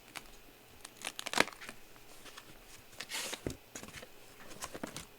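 Trading-card packaging being handled and opened: scattered clicks and knocks, and a short rip of tearing, crinkling plastic wrap about three seconds in.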